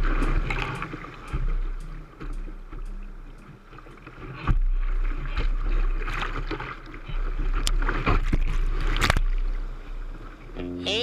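Whitewater rapid rushing over and around a kayak's bow, heard close up from a camera mounted on the boat, with a deep rumble and several sharp splashes hitting the boat and lens.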